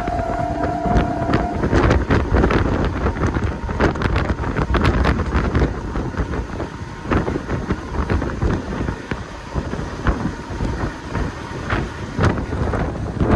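A moving train: a continuous rumble with dense, irregular clattering of the wheels and carriage, and wind buffeting the microphone. A thin steady tone sounds for about the first second and a half.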